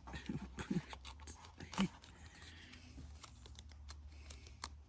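Thin printed cereal-box card bent by hand along an unscored fold, giving faint scattered clicks and crackles as the glossy surface cracks along the crease.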